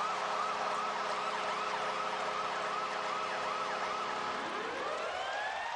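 Arena goal siren warbling rapidly over a steady horn tone and a cheering crowd, right after a home goal. Near the end a second siren winds up, rising steeply in pitch.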